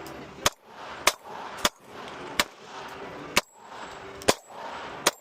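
9mm pistol fired in a steady string: seven sharp shots about one every second or less, with slightly uneven spacing.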